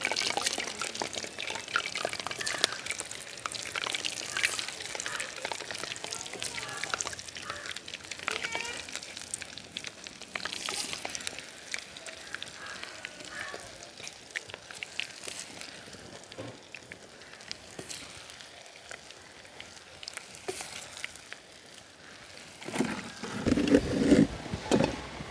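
Batter-coated peanut and date balls deep-frying in hot oil: steady sizzling and crackling, louder for a few moments near the end.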